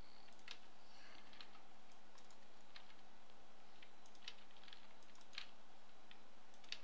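Faint, scattered clicks of a computer keyboard and mouse as 3D modelling software is operated, a handful of separate clicks a second or so apart, over a steady low electrical hum and hiss.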